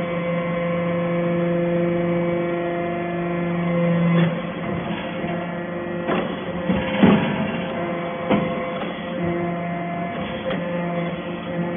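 Hydraulic scrap metal chip baler running with a steady hum from its motor and pump. About four seconds in the hum changes tone for several seconds, with a few knocks and clanks, before it settles back.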